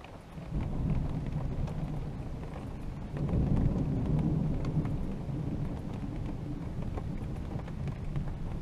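Long rolling thunder rumbling low, building about half a second in and swelling again around three seconds in, with light rain pattering.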